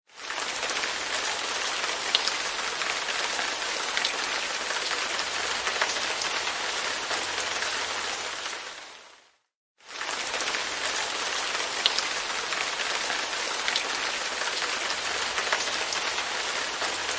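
Light rain pattering on a window pane: a steady hiss of rain with occasional sharper individual drops. About nine seconds in it fades out to a moment of silence, then fades back in.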